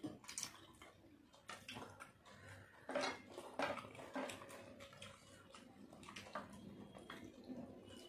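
People eating rice and curry by hand: faint wet chewing and lip smacks, with irregular short clicks and soft scrapes of fingers working food on plates.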